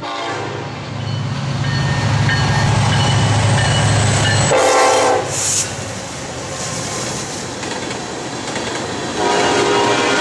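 Norfolk Southern freight train passing: diesel locomotives running with a deep engine drone, a short horn blast about halfway through, then the rolling noise of tank cars going by as the horn sounds again near the end.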